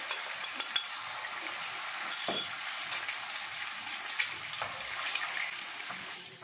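Beaten egg sizzling in a hot frying pan: a steady hiss with a few small clicks, easing off near the end.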